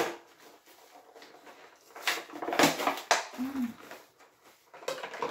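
Cardboard box and plastic toy packaging being handled and pulled open, rustling and scraping in several bursts. A short low vocal sound, rising then falling, comes about three and a half seconds in.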